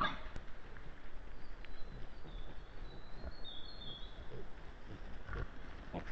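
Wild boars at a feeding site: a brief, loud boar call right at the start, then a bird singing thin, high whistles in the middle, and two short grunt-like sounds near the end, over a steady outdoor background.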